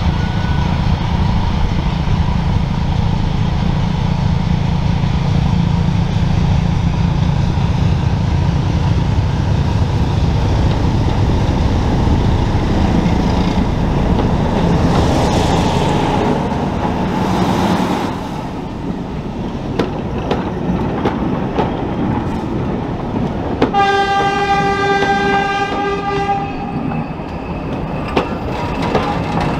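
Diesel locomotive engine running hard as the train goes by. Then one steady horn blast of about three seconds, and wheels clicking over rail joints near the end.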